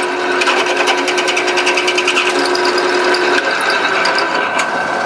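Electric drill with a 27/64-inch bit boring through a screwdriver handle: a steady motor whine with a rapid chatter from the bit cutting, which eases off in the last couple of seconds.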